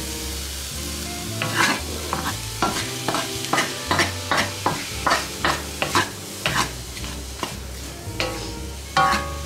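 Diced onions sizzling in a hot wok while a wooden spatula stirs and scrapes them, in quick strokes about three a second from about a second and a half in.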